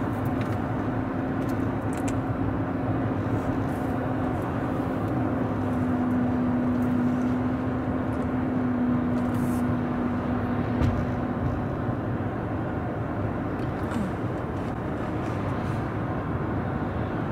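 Steady road and engine noise inside a moving car's cabin, with a low drone that stops about twelve seconds in.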